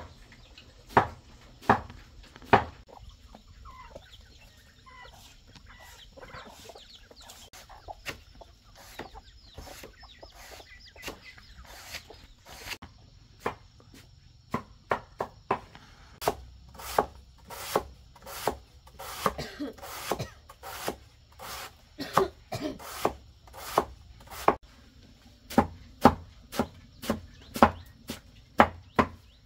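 Repeated sharp knocks, like chopping on wood: a few loud strokes at first, sparse ones in the middle, then a steady run of about two a second through the second half. Chickens clucking among them.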